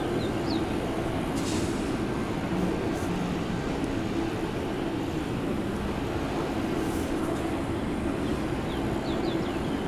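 Duronto Express passenger train rolling slowly through a station: a steady rumble of wheels on rails. Faint short squeaks come just after the start and again near the end, with a couple of light ticks in between.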